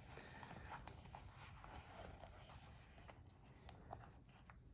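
Near silence with faint rustling and a few light clicks of leather being handled and fastened.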